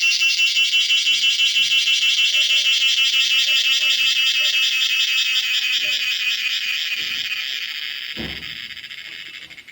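Cicada singing: a loud, rapidly pulsing buzz that holds steady, then fades away over the last few seconds. A brief low thump about eight seconds in.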